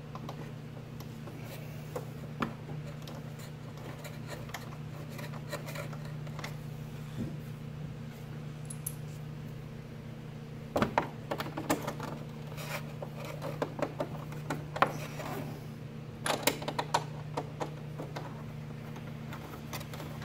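Small metallic clicks and scrapes of M5 screws being fitted and driven into a motorcycle's plastic side panel with a T25 driver, with two busier runs of quick clicks about 11 and 16 seconds in. A steady low hum runs underneath.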